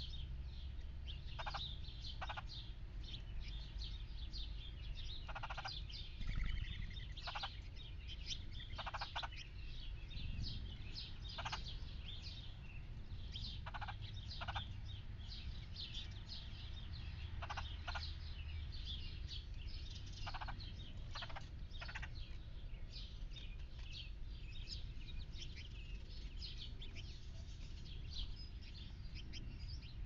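Red-headed woodpecker giving short, harsh calls every second or two, with a pause later on. Behind them runs a steady chorus of small backyard birds chirping and singing.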